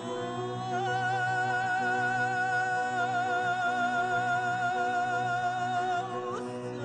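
Background music: one long note with vibrato, sung in an operatic style, held over a steady low drone and breaking off about six seconds in.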